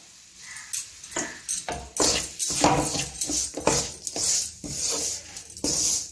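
Wooden spatula scraping and stirring damp rice flour and grated coconut in an aluminium pan, a quick, irregular series of scrapes that starts about a second in.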